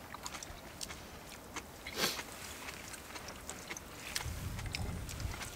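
Eating sounds at a table: chewing and scattered light clicks of utensils on bowls, with a short louder noise about two seconds in and a low rumble near the end.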